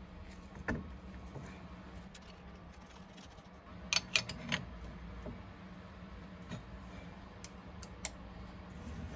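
Steel hand tools clinking against a milling table's handwheel and leadscrew nut: a few light clicks, then a quick cluster of sharp metallic clinks about four seconds in as a spanner goes onto the nut, and a few more single clicks near the end. A steady low hum runs underneath.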